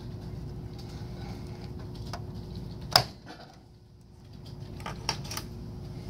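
A DDR2 memory module being pressed into a Dell OptiPlex GX620 motherboard's DIMM slot, the plastic retention clips snapping shut with one sharp click about three seconds in. A few lighter plastic clicks follow near the end, over a steady low hum.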